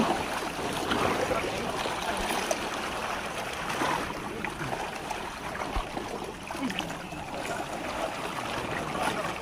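Sea water splashing and sloshing around a bamboo fishing raft as a net is hauled up out of the sea by hand, with a few faint small knocks.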